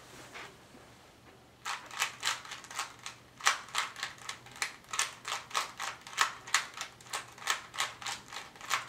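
Rubik's Cube being turned fast by hand, its plastic layers clicking and clacking about three turns a second, starting about two seconds in.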